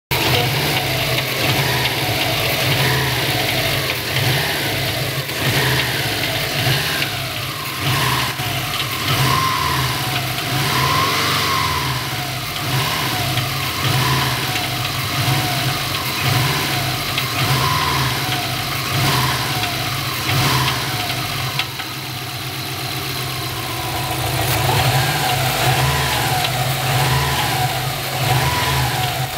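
Turbocharged Subaru flat-four engine running and blipped up in repeated short revs that fall back, with a metallic rattle as the revs drop, which the owner places in the area of the turbo.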